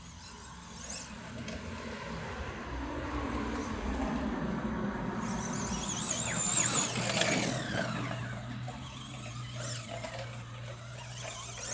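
Tamiya Midnight Pumpkin RC monster truck being driven hard: its electric motor whines, rising and falling with the throttle, over the rattle of tyres and chassis. It is loudest about six to seven seconds in.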